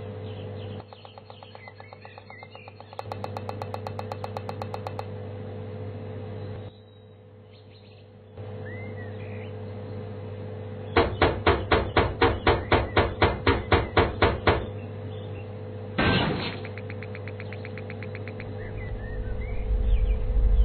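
Animation sound effects of a broken vending machine being knocked: a rapid, even series of about fifteen loud knocks, about four a second, then one heavier bang, over a steady electrical hum. A fast run of light clicks comes before the knocks, and a low rumble swells near the end.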